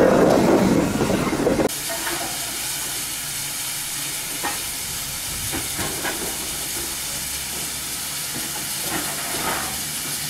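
GWR 0-6-0 pannier tank locomotive running close past for the first second and a half, then, after a sudden cut, standing with a steady hiss of escaping steam.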